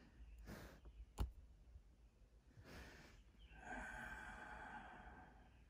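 Near silence: faint breathing with a sigh, a single sharp click about a second in, and a faint steady hum of tones in the second half.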